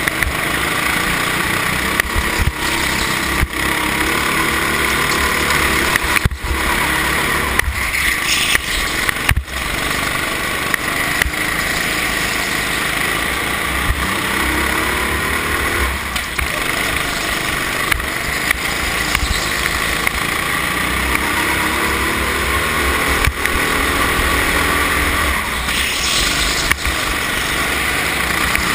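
Go-kart engine heard from the kart itself while racing, running loud and continuous with its revs rising and falling through the corners.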